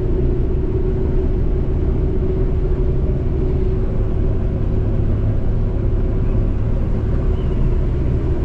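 New Holland CX5090 combine harvester running steadily while threshing wheat: a constant engine rumble with a steady hum over it.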